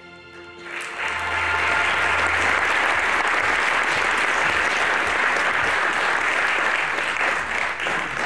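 Audience applauding, swelling up about a second in as the tail of background music dies away, and thinning out near the end.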